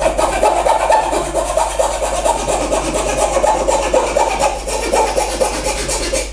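Coping saw cutting a curve through a thin piece of wood: a rapid, steady run of up-and-down sawing strokes.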